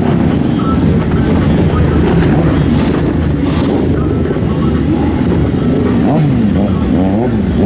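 Engines of a slow procession of sport motorcycles running at low speed close by, several bikes at once, with the pitch rising and falling a few times in the second half.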